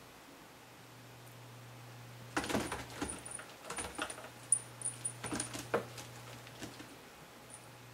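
A cat at play with a fluffy string toy: irregular rustling and clattering with small metallic jingles for a few seconds from about two seconds in. A faint steady hum sits underneath.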